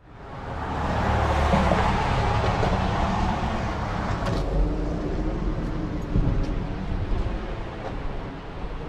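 A car passing on the road: tyre and engine noise swells over the first couple of seconds, then fades by about four seconds in. A lower, steady outdoor rumble follows.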